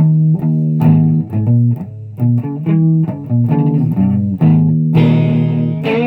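Guitar music: plucked notes and chords in quick succession, with a held chord starting about five seconds in.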